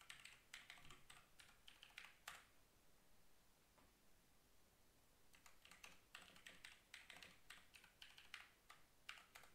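Faint computer keyboard typing: a quick run of keystrokes for about two seconds ending in a sharper key press, a pause of about three seconds, then a second run of keystrokes lasting about four seconds.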